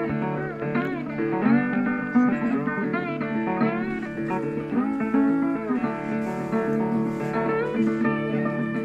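Background music: a guitar tune whose notes slide up and down in pitch over a steady lower accompaniment.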